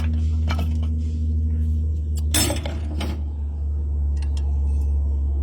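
Hard metal clinks and a short clattering rattle about two and a half seconds in, over a steady low hum.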